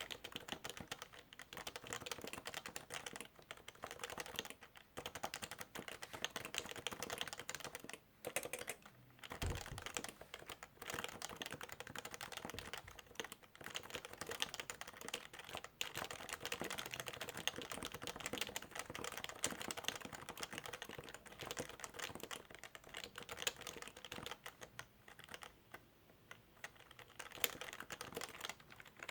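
Continuous fast typing on a Topre Realforce keyboard, its electrostatic-capacitive rubber-dome keys giving soft, rapid clicks with a few brief pauses. A short low thump about nine and a half seconds in.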